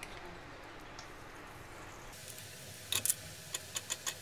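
Ghee spooned into a hot non-stick kadhai and spread with a spatula: a faint hiss, then a few sharp clicks of the utensil knocking against the pan from about three seconds in.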